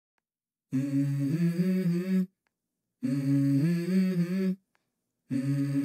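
Start of a song track: a voice humming a melody with no accompaniment, in three held phrases of about a second and a half each, separated by short silences.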